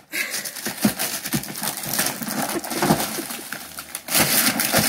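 Wrapping paper crinkling and tearing as a present is unwrapped, with a louder, fuller rip about four seconds in.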